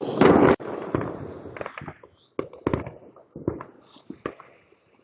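Consumer fireworks going off: a loud blast at the start that fades into a hiss, then a run of scattered sharp pops and crackles.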